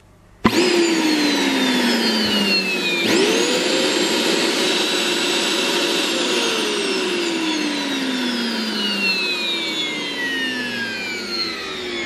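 Vacuum cleaner suction motor of a 1600 W SEG water-filter vacuum being test-run after a carbon brush repair. It kicks in suddenly about half a second in and its whine falls away. At about three seconds it speeds up to a steady high whine. From about six seconds the pitch falls steadily as the motor winds down.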